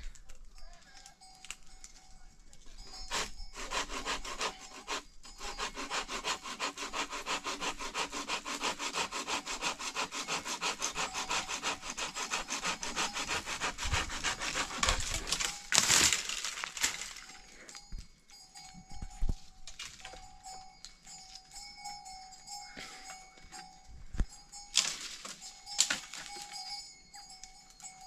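A hand saw cutting through wood in quick, even back-and-forth strokes for about ten seconds, then stopping. Scattered knocks and clatter follow.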